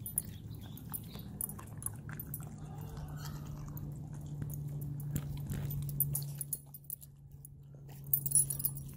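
Husky chewing and biting food close to the microphone, with short clicks of teeth and jaws, the loudest about a quarter second in and again near the end, over a steady low hum.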